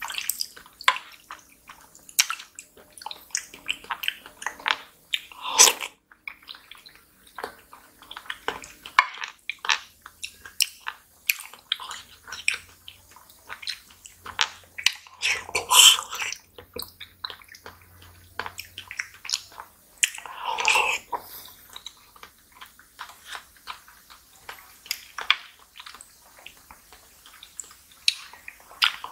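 Close-up wet mouth sounds of someone eating soft fruit jelly and pudding: squishy chewing and lip smacks, with louder slurps of jelly off the spoon about six, sixteen and twenty-one seconds in.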